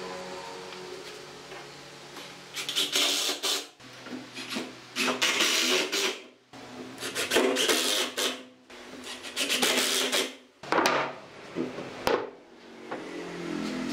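Cordless drill driving screws into a pine table frame: a series of rasping bursts, each about a second long, as the screws bite into the wood. A short sharp knock comes near the end.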